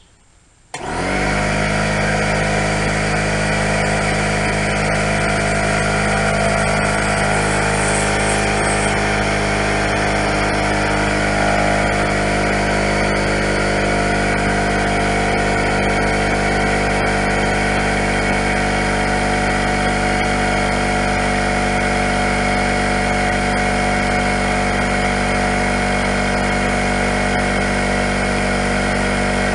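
Porter Cable oil-less pancake air compressor switching on about a second in and running steadily, its motor driving the newly replaced piston to pump air into the tank on a test run.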